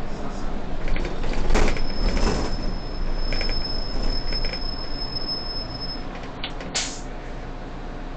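Solaris city bus at a stop: hisses of compressed air from the pneumatic door gear about a second and a half in and again near the end, with a steady high electronic tone held for about four seconds between them, over the bus engine running.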